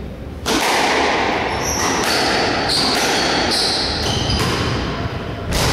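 Squash rally: the ball smacking against the court walls and racquets, with shoes squeaking sharply on the wooden floor several times as the players move.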